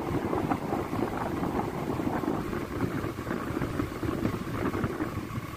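Motorcycle running along a rough dirt road, its engine noise mixed with choppy wind rushing over the microphone.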